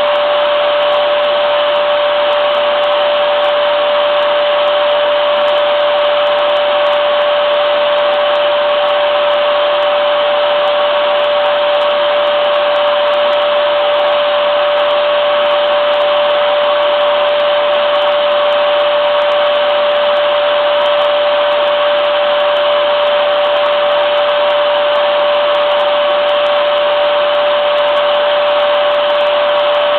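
Vacuum cleaner running steadily: a constant whirring hum with one strong steady tone and an even rush of air, unchanging throughout.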